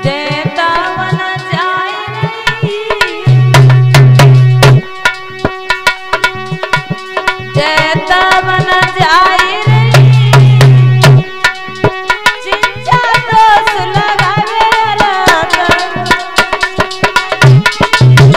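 Live devotional music: a harmonium melody over a fast hand-drum rhythm, with two runs of heavy low drum strokes, about three seconds in and again near the middle.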